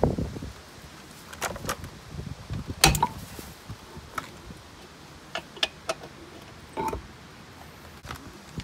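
Scattered sharp metallic clicks and clinks, the loudest about three seconds in, from a breaker bar, socket and hinge pin tool as a threaded gimbal hinge pin is turned out of a Volvo Penta SX sterndrive transom shield and the tool comes off.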